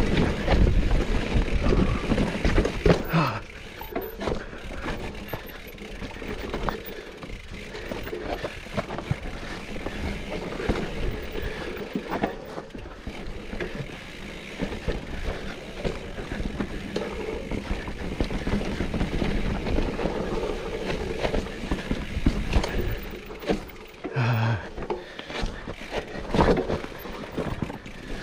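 Mountain bike riding down a steep, rough dirt trail: tyres crunching over dirt and rocks with the bike's chain and frame rattling, and wind buffeting the microphone, loudest in the first few seconds.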